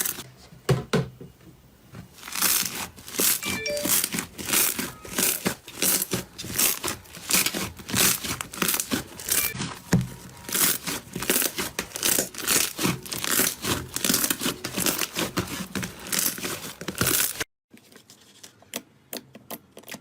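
Slime being squeezed and pressed, giving a dense run of crackles and pops. About three-quarters of the way through it cuts off abruptly to quieter, scattered clicks.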